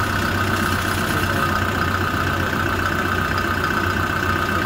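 Kia Bongo 3 diesel engine idling steadily, with a steady high whine alongside, running on rebuilt fuel injectors and a new fuel filter after a hard-starting fault.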